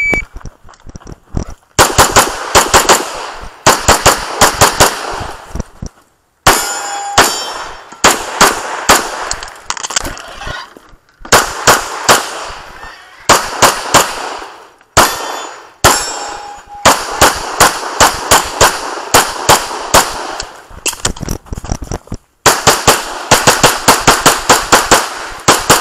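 A shot timer's short start beep, then a semi-automatic pistol firing fast strings of shots. The strings are broken by short gaps every few seconds as the shooter moves between target arrays. A brief ringing note sounds twice among the shots.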